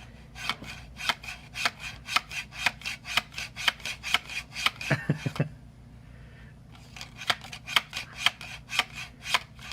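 A rapid, even series of sharp taps or clicks, about five a second. They pause for a moment about five seconds in, then resume.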